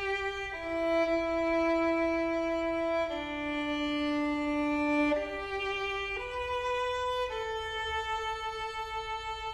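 Background music: a slow melody of long held notes on a bowed string instrument, each note changing every second or two.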